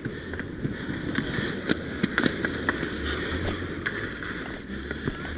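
Inline skate wheels rolling on the rink surface, with sharp clacks of hockey sticks striking the ball or puck and each other, several in quick succession about two seconds in.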